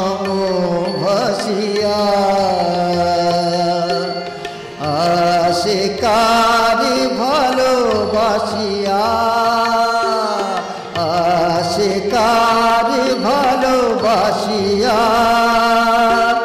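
A man singing a Bengali song into a microphone, amplified through stage loudspeakers. He sings in three long phrases with held, wavering notes and short breaks about five and eleven seconds in.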